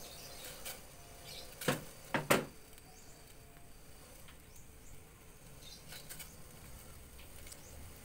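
Three sharp clicks or knocks in quick succession about two seconds in, over faint low background noise with a few light ticks.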